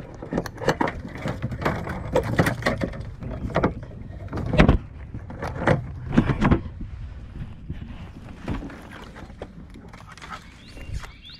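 Irregular knocks, bumps and scrapes of a plastic kayak being shoved and handled under a fallen tree, with twigs brushing along the hull. Busiest through the first seven seconds, with two loudest knocks, then quieter.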